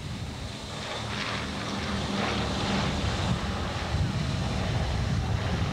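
Consolidated B-24 Liberator's four radial engines running as it taxis, muffled under heavy wind noise on the microphone, growing a little louder over the first couple of seconds.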